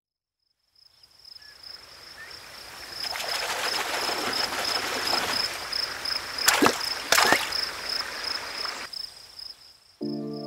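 Title-sequence sound effects: a noisy whoosh that swells up with a steady, pulsing high whine over it, two sharp cracks about two-thirds of the way through, then it cuts off and music begins just before the end.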